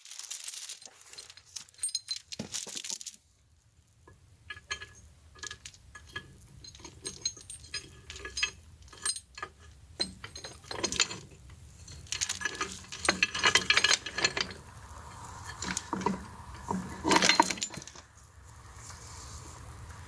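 Steel parts clinking and knocking as they are handled and set in place: scattered sharp metal clinks, with denser clattering bursts in the second half. A faint low hum runs underneath from a few seconds in.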